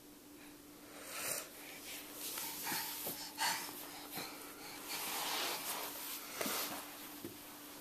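Horse breathing and snuffling through a congested nose, a run of breathy puffs and snorts, a sign of the sniffles.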